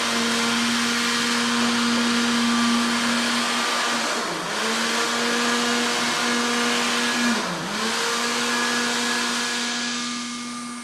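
Countertop juice blender running, its motor chopping red chilies, chili padi and garlic into a wet chilli paste with a steady hum. The motor briefly slows twice, about four and seven seconds in, then picks back up.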